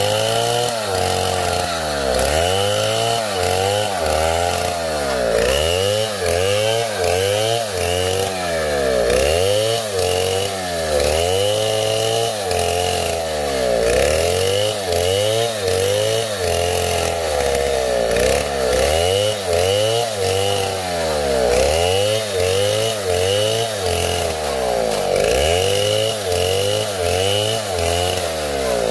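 Chainsaw running and cutting wood, its engine revving up and falling back over and over, roughly once a second.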